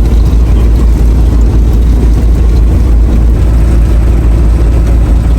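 An engine running with a steady, loud low rumble.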